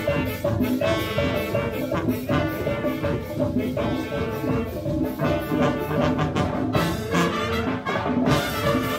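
Marching band playing an upbeat Latin tune: brass carrying the melody over drums and hand percussion keeping a steady beat.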